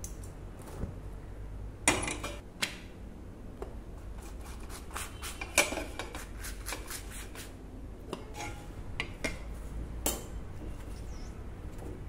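Stainless steel kitchen utensils, tongs and a steel plate, clinking and clattering while rotis are cooked at the stove. There are sharp metallic knocks about two seconds in and again about halfway, a run of lighter clinks after that, and one more knock near the end.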